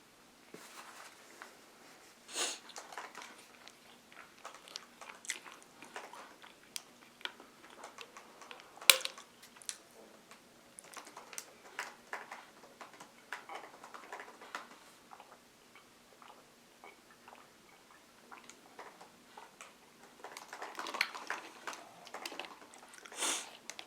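Scattered small clicks and taps in a quiet small room, with one sharper click about nine seconds in and a busier run of clicks near the end.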